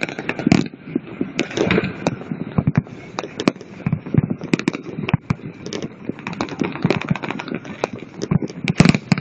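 Aerial fireworks bursting: many sharp bangs and pops in quick, irregular succession, with a cluster of louder bangs near the end.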